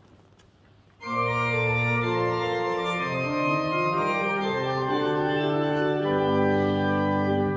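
Church organ playing slow, held chords, coming in suddenly about a second in after a quiet room. The chords change step by step and begin to fade at the very end.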